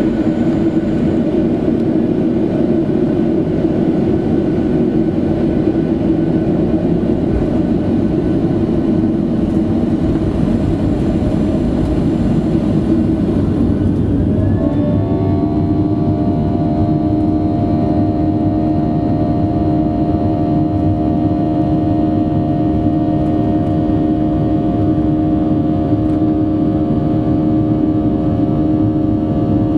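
Boeing 737-700's CFM56-7 turbofan engines at full takeoff thrust during the takeoff run, heard from the cabin as a loud, steady roar. About halfway through, a set of whining tones rises briefly and then holds steady.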